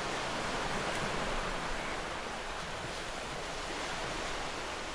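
Surf washing on a beach, a steady even hiss with no distinct events.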